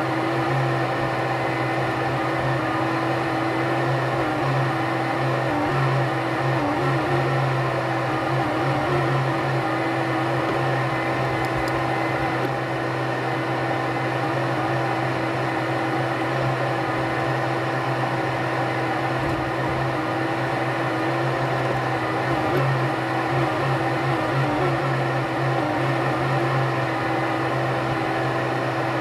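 Ponsse forest harvester's engine and hydraulics heard from inside the cab: a steady drone whose pitch wavers slightly now and then as the crane works.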